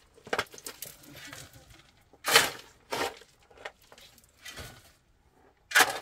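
Long-handled hoe chopping and scraping into stony, gravelly earth, with stones clinking. About half a dozen uneven strikes, the loudest a little over two seconds in.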